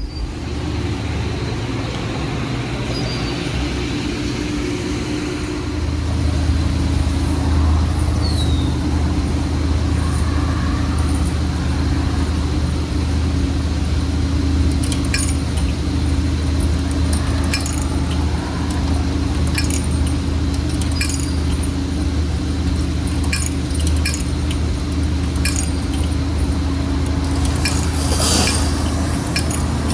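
Car engine and road noise heard from inside the cabin while driving: a steady low drone that gets louder about six seconds in, with light clinks and rattles now and then.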